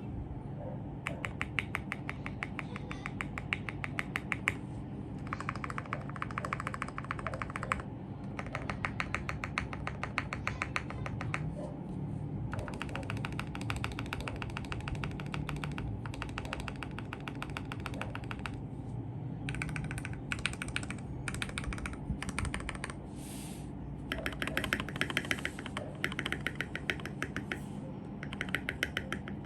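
Typing on a foam- and tape-modded 1stPlayer Uni-Q mechanical keyboard with lubed RK Red linear switches and Akko ASA keycaps: fast, steady runs of key clicks a few seconds long, broken by short pauses.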